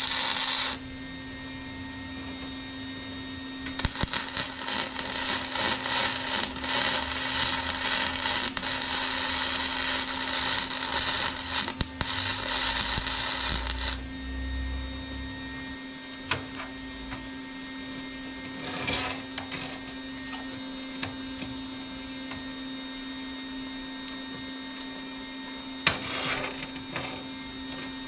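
Flux-core MIG welder arc crackling and sputtering: a short bead stops just under a second in, then a long bead of about ten seconds, with two brief bursts later. Between beads the welder hums steadily.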